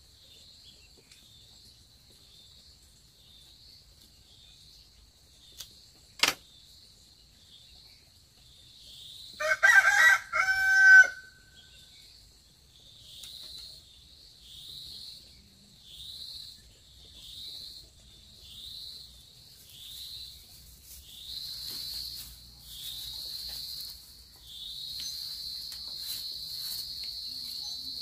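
A rooster crows once, about ten seconds in; it is the loudest sound. Throughout, insects call in a high pitch, in regular pulses a little over a second apart that grow longer and almost continuous near the end, with a single sharp click a few seconds before the crow.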